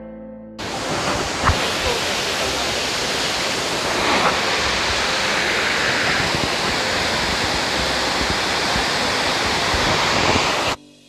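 Rhine Falls heard close up: a loud, dense, steady rush of falling water that cuts in abruptly just after the start and cuts off abruptly near the end.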